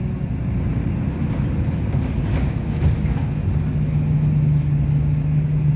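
Alexander Dennis Enviro200 single-deck bus on the move, its engine and road rumble heard from inside the passenger saloon. About halfway through, a steady engine hum settles in over the rumble.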